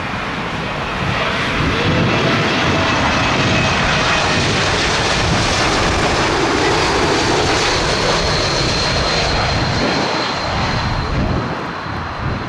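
Airbus A220-300 jet airliner on final approach, its Pratt & Whitney PW1500G geared turbofans making a steady jet roar that builds about a second in and eases off near the end. A thin high whine sits over the roar and falls slightly in pitch in the second half.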